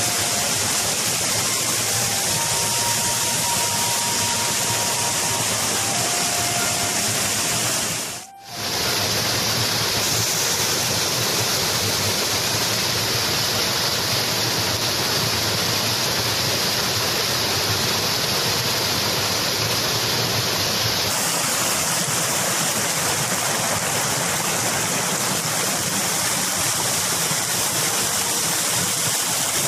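Water rushing down a small cascade and along a stream channel: a loud, even rush of water that drops out for a moment about eight seconds in.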